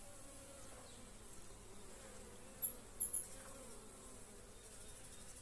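Honeybees buzzing around a hive entrance, a faint wavering hum of the colony at work. Two short high chirps stand out about halfway through.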